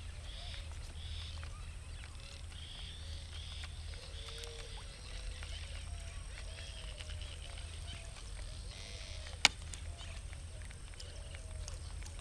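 Birds calling over a river: repeated high chirps and lower warbling calls, over a steady low rumble. A single sharp knock sounds once, about three quarters of the way through.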